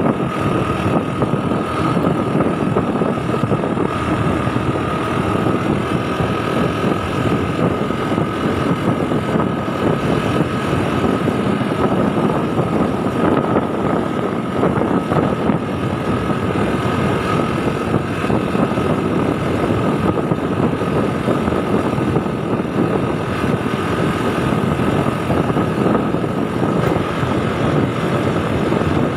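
Motor scooter riding along a road: steady engine and road noise mixed with wind rushing over the microphone, with a steady high whine running under it.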